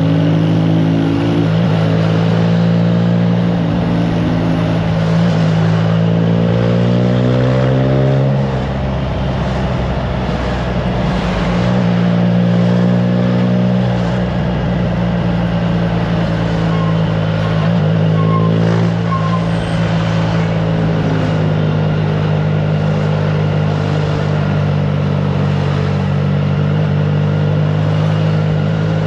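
Triumph Trident 660's inline three-cylinder engine through an aftermarket FireTong exhaust, ridden at road speed, its pitch climbing and dropping back several times, with an easing off about eight seconds in. Wind rushes over the camera microphone.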